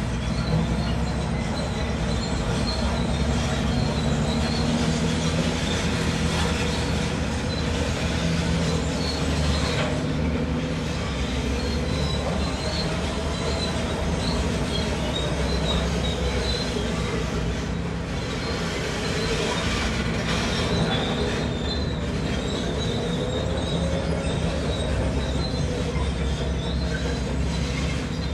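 A tracked earthmoving machine working under steady load: its diesel engine runs continuously while its steel crawler tracks give off a wavering high squeal and clanking.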